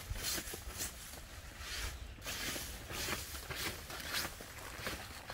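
A brush sweeping snow off a tent's fabric vestibule, in repeated swishing strokes about two a second.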